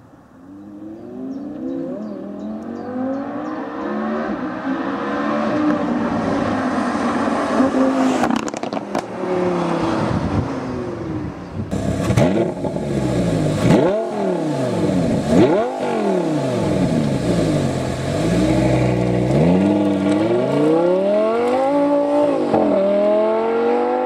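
Lamborghini Huracán V10 approaching and accelerating, growing louder over the first several seconds. After a cut, a Lamborghini Gallardo Spyder's V10 is revved a few times at standstill, the pitch rising and falling with each rev, then accelerates away, pitch climbing with an upshift near the end.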